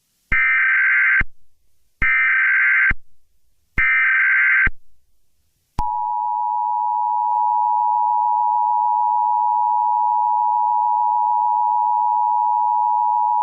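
Emergency Alert System SAME header: three short bursts of digital data tones, a little under a second each, sent to mark the start of an alert. About six seconds in, the steady two-tone EAS attention signal begins and holds. Together they open a civil danger warning.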